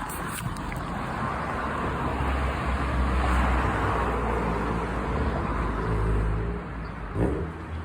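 Road traffic noise: a motor vehicle's engine rumble and tyre hiss swelling over several seconds and fading about six and a half seconds in.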